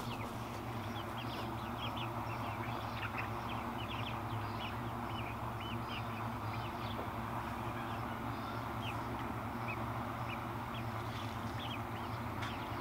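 Chickens making many short, high chirps at irregular intervals, over a steady background hiss.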